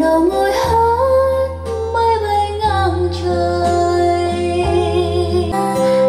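Sony SRS-X9 speaker playing a song: a female voice singing a gliding melody over guitar and a steady bass line.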